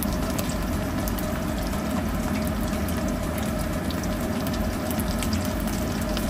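Oil sizzling and crackling steadily around breaded patties shallow-frying in a wok, with a constant patter of small pops.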